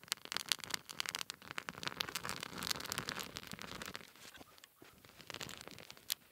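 Dry dead conifer twigs and needles catching fire, crackling in a rapid run of sharp pops that thins out after about four seconds, with one louder pop near the end.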